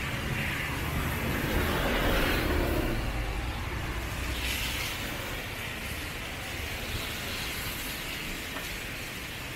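Street traffic: a car passing on a wet road, its tyre hiss and engine rumble swelling to a peak about two seconds in and then fading into a steady traffic wash.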